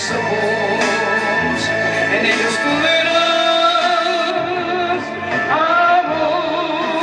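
A man singing a Spanish-language love song into a microphone over instrumental accompaniment, holding long notes with vibrato.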